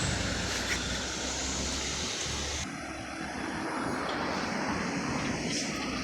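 Heavy vehicles passing close by: a steady rushing rumble with a low engine hum that eases off about two and a half seconds in.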